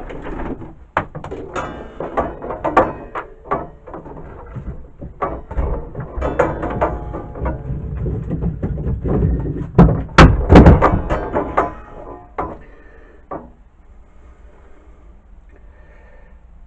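Rummaging through pieces of wood: a run of irregular clattering knocks as pieces are moved and handled. The loudest knocks come about ten seconds in, and it settles down near the end.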